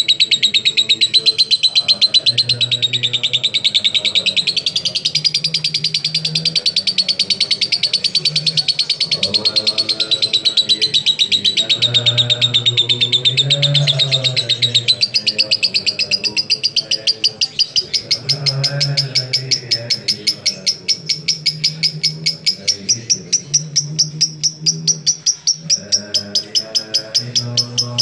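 Lutino lovebird ngekek in the 'konslet' style: one long, unbroken stream of rapid, shrill chattering with no pause for breath. The chatter climbs a little higher in pitch about halfway through and stops abruptly at the end.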